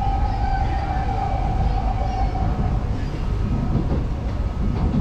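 Singapore MRT train running between stations, heard from inside the car: a steady rumble of wheels on the track, with a high steady whine that fades out about halfway through.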